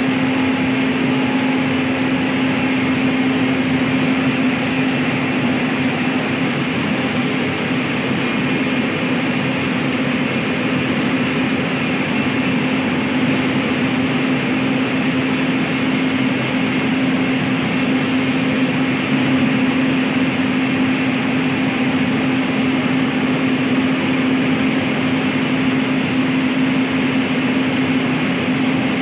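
WAG-9H electric locomotive standing with its auxiliary machinery running: a steady drone with a steady low hum, unchanging.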